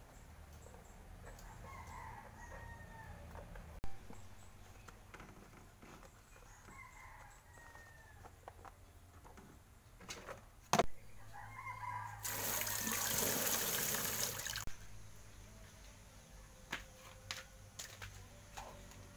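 Chickens calling in the background, three short calls several seconds apart. A steady hiss lasting about two seconds past the middle is the loudest sound, and there are a couple of sharp knocks.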